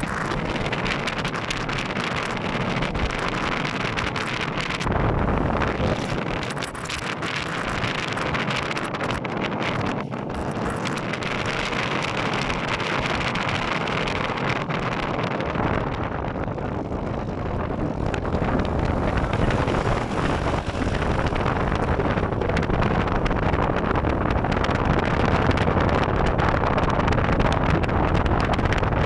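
Steady rush of wind blowing on the microphone, with a deep rumble that drops back for stretches and grows stronger about five seconds in and again past the halfway point.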